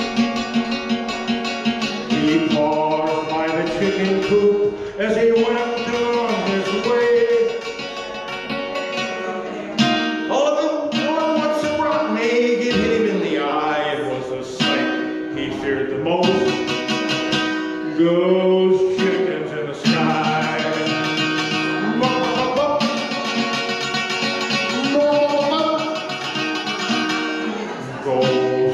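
Solo male voice singing over his own archtop guitar, chords and picked notes played live.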